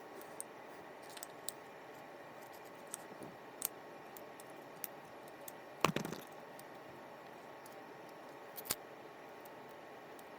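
Small parts and tools of a fishing reel being handled during disassembly: scattered light clicks and metallic clinks, one louder clatter about six seconds in and another sharp click about three seconds later, over a steady low hiss.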